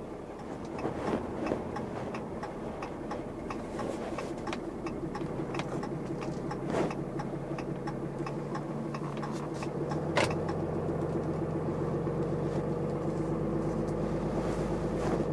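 2018 Ram pickup truck driving slowly, heard from inside the cab: a steady engine hum with road noise and a few scattered knocks and rattles. A sharp click comes about ten seconds in, and a deeper low rumble follows.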